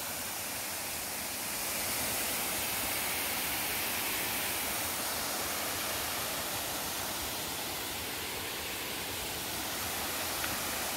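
Small forest waterfall pouring into a pool: a steady rush of falling water.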